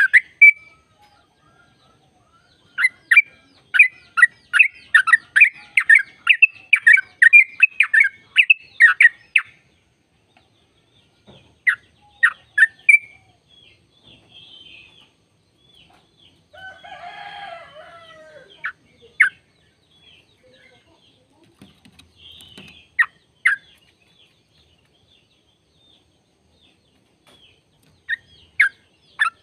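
Yellow-vented bulbul singing a fast run of short bubbly chirps for about seven seconds, then scattered single notes with long pauses. About halfway through there is one harsher, lower call.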